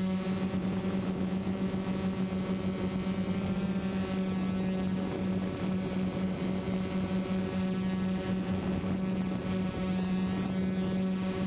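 Quadcopter drone's motors and propellers heard from its onboard camera: a steady buzzing hum at an unchanging pitch, rich in overtones.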